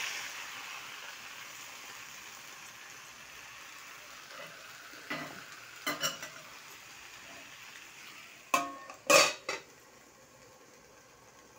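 Potatoes, eggplant and tomatoes sizzling in a frying pan as a spatula stirs and scrapes through them, the sizzle slowly fading. About eight and a half seconds in, a steel lid clatters down onto the pan in a few sharp clanks, the loudest sounds.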